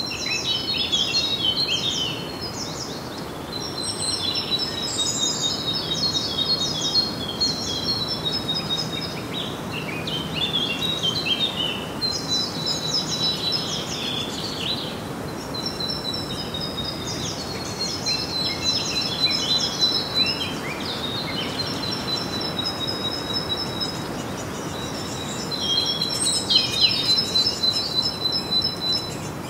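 Songbirds singing: quick chirping phrases repeating every few seconds over a steady background hiss.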